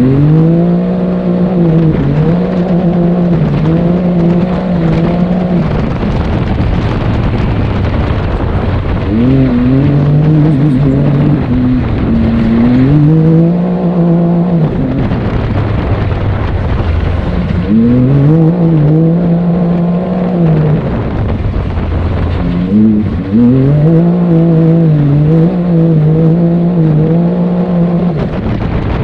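Can-Am Maverick X3 Turbo RR side-by-side's turbocharged three-cylinder engine, through an HMF single exhaust, heard on board as it is driven hard: the revs climb and then hold steady as the CVT pulls, drop off, and climb again several times. A constant rush of wind and tyre noise runs underneath.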